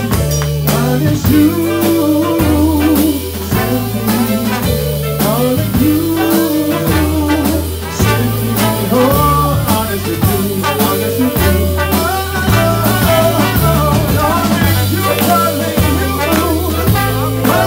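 Live soul band playing: a deep upright bass line of long, changing notes under a drum kit keeping steady time, with singing over it.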